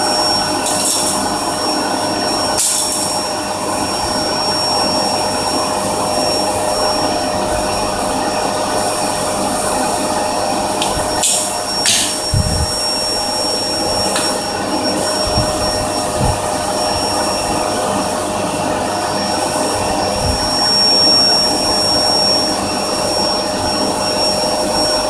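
Vacuum cleaner running steadily with a constant whine, suctioning through its hose to the saw's dust hood. A few light clicks and knocks of a hardboard panel being handled.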